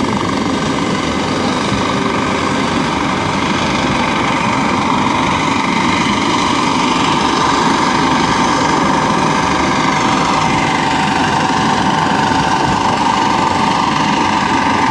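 Coast Guard helicopter close overhead: a steady, loud beat of the main rotor under a high turbine whine. About ten seconds in, the whine dips slightly in pitch and comes back.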